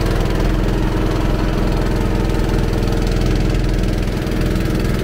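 A small wooden river boat's engine running steadily under way, with a fast, even pulse at a constant level.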